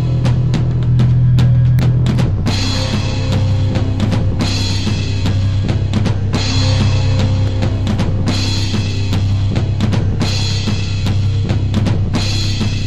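Electronic music track made in Fruity Loops: a drum-kit beat with bass drum, snare and cymbals over a steady deep bass, with bright cymbal washes coming in and out about every two seconds.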